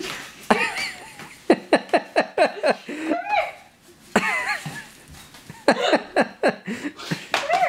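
People laughing in several runs of short ha-ha pulses.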